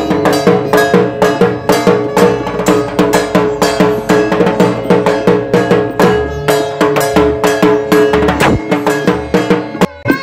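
Music with fast, even drumming and a clanking, bell-like beat over held tones. It breaks off briefly just before the end.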